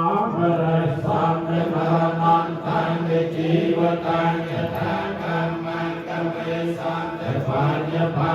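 Buddhist chanting in Pali by a group of voices in unison, held on a near-monotone pitch with short pauses for breath.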